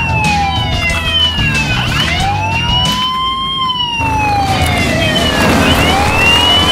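Police siren wailing in slow rising and falling sweeps, about one cycle every three and a half seconds, with a second siren tone falling faster over it.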